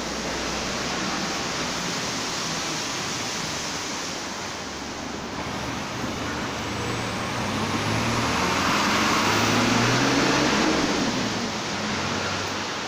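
Steady hiss of rain, swelling louder for a few seconds around the middle.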